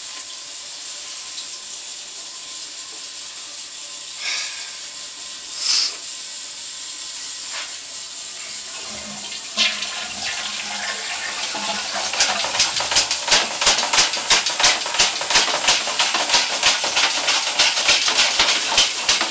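Water running in a 4-inch cast iron sewer line: a steady hiss, then a fast, even run of clicks, about four a second, over the last seven seconds.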